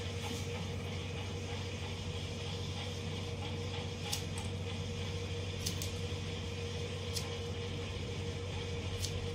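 Electric hair clipper running with a steady hum, with about six short sharp clicks in the second half.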